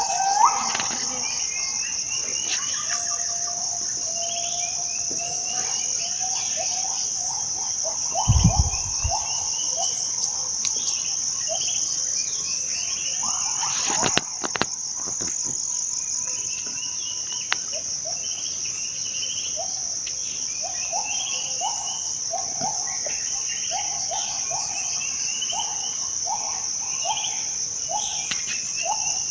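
Tropical rainforest insects, such as crickets or cicadas, keep up a steady high-pitched drone at two pitches. Over it, forest birds call with short, upward-sliding notes, some high and some lower; the lower notes repeat about twice a second in the second half. There is a brief low thump about eight seconds in.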